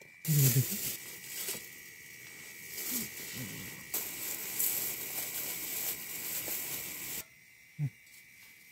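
Portable butane canister stove burner hissing steadily with its gas flame lit, starting abruptly with a short low bump and cutting off suddenly near the end. A thin steady high chirring, typical of night insects, runs underneath.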